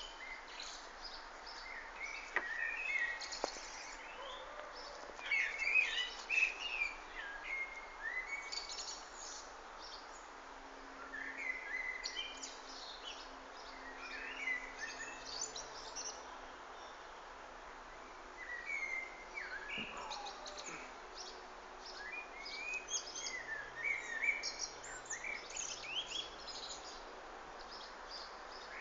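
Songbirds chirping and singing outdoors in bouts of quick, high chirps lasting a few seconds each, separated by short pauses, over a steady faint hiss.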